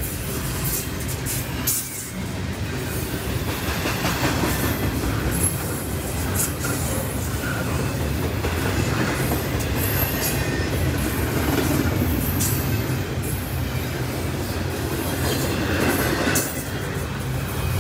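Freight train rolling steadily past: a continuous rumble of steel wheels on the rails, with scattered sharp clicks and brief squeaks from the wheels.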